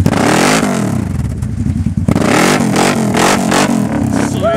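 Quad ATV engine revving up and down over and over as the stuck machine tries to pull itself out of a mud hole.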